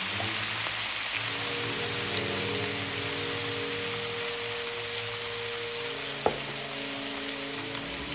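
Shrimp and bell peppers sizzling steadily in a hot cast-iron skillet with soy sauce, under soft background music. A single sharp click sounds about six seconds in.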